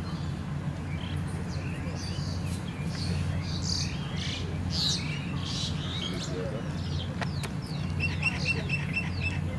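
Small birds chirping and calling, many short high notes, with a quick run of repeated notes near the end, over a steady low hum.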